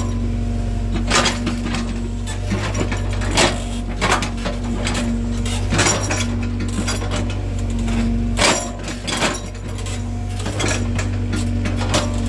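Excavator engine running with a steady low drone, under about a dozen irregular, sharp metallic clanks and clinks.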